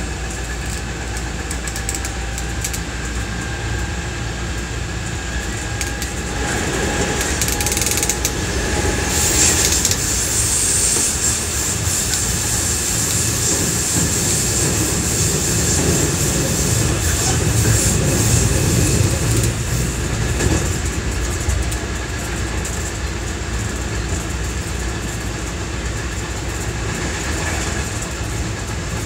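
JR West 207 series 1000-subseries electric commuter train running, heard from inside the passenger car: a steady rumble of wheels on rail with a faint motor whine that rises a little in pitch over the first several seconds as the train gathers speed. The running noise grows louder, with a high hiss, from about six seconds in, and settles back to a steadier run after about twenty seconds.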